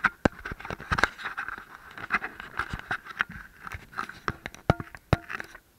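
Handling noise from fingers gripping and shifting on a small action camera: irregular sharp clicks and taps mixed with rubbing, which stops abruptly near the end.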